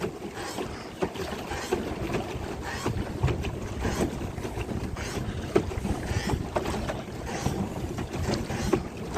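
Water sloshing and splashing around a paddle boat on choppy water, with many irregular small knocks and splashes, and wind buffeting the microphone.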